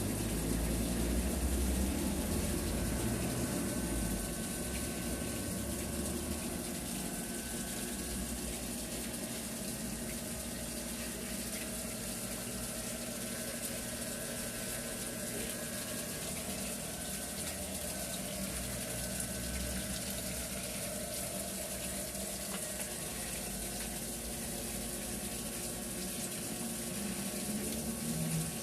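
Water gushing steadily from a well drilled in rock, with a low rumble underneath.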